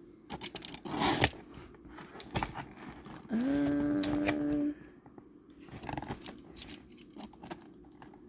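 Scissors snipping and tearing at a taped cardboard box, with scattered clicks and rustling. A little before the middle comes a steady pitched tone lasting about a second and a half.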